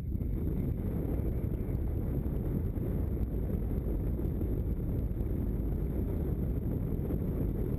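Wind rushing over the microphone of a camera worn by a paraglider pilot in flight: a steady low rumble.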